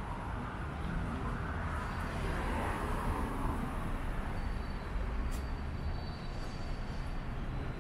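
Road traffic on a city street: cars and a pickup truck driving past, with a steady low rumble and a rush of tyre and engine noise that swells about two to three seconds in.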